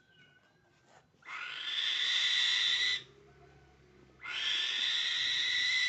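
A bird of prey giving two long, harsh screeches, each lasting nearly two seconds, the second starting about a second after the first ends.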